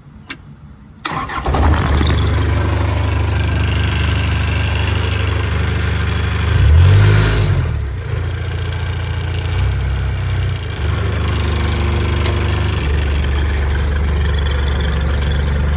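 A TUG MA50 baggage tow tractor's engine being started: a click, then about a second in the engine catches almost at once and settles into an idle. Around seven seconds in it revs briefly up and back down, then idles steadily again.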